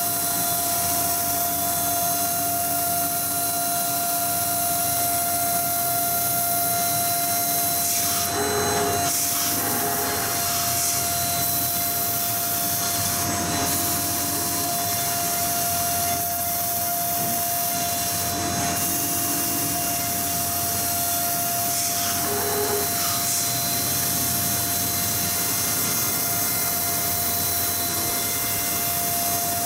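High-speed CNC milling machine cutting aluminium sheet with a small end mill: a steady high whine from the spindle over a constant hissing cutting noise, with a few brief louder rasps as the cutter moves through the metal.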